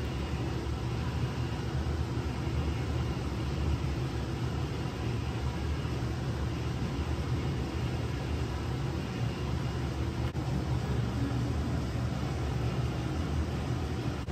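Steady low rumble of room background noise, with one faint click about ten seconds in.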